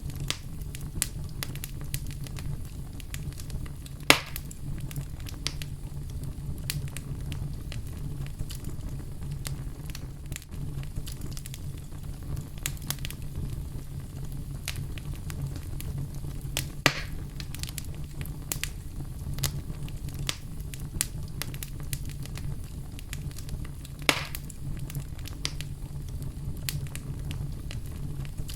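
Fire in a fireplace, crackling steadily with small snaps over a low rumble of flame. Three louder pops stand out: about 4 seconds in, about 17 seconds in and about 24 seconds in.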